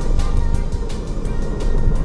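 Music with a steady beat, over the low rumble of a car on the move.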